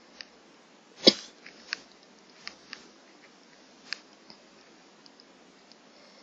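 Breathing of a person in an asthma attack, close to a phone microphone: a scattered run of short crackles and clicks, the loudest about a second in, over a faint steady hiss.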